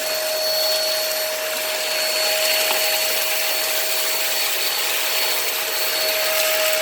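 Hoover React Professional Pet vacuum running in hard-floor mode while vacuuming cat litter off a hard floor. It gives a steady motor whine over an even rush of airflow.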